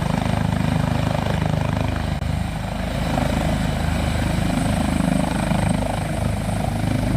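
Helicopter sound effect: a steady rotor chop over a low engine drone.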